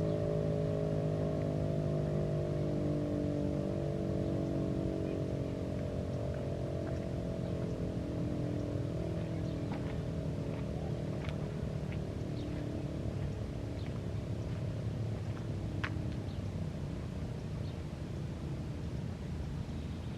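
Federal Signal Thunderbeam RSH-10 outdoor warning siren winding down at the end of its alert signal, its many-toned wail slowly sliding lower in pitch and fading.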